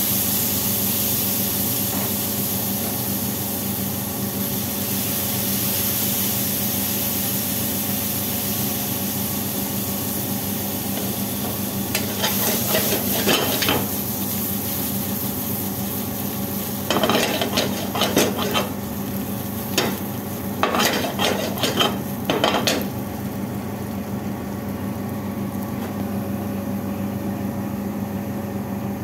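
Potato cubes sizzling in oil in a stainless steel frying pan over a steady hum. In three short bouts in the middle, a utensil stirs them, scraping and clinking against the steel pan.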